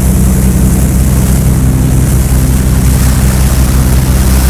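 Tour boat's engine running steadily while underway: a loud, even low drone with a steady rushing hiss of wind and water over it.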